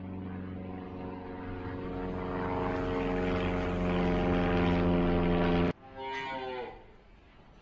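A steady engine drone, slowly growing louder, that cuts off abruptly about five and a half seconds in. Just after, a dairy cow moos once, briefly.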